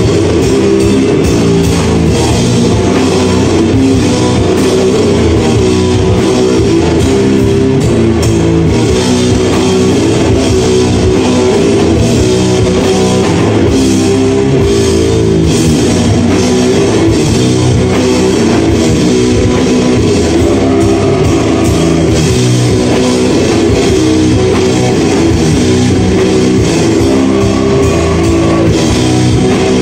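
Live metal band playing loud and unbroken: heavily distorted electric guitar and bass guitar over a drum kit.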